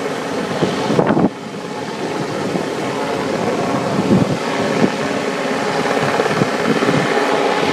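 Westland Sea King helicopter hovering, its rotor and turbine noise mixed with wind buffeting the microphone; the level drops suddenly a little over a second in.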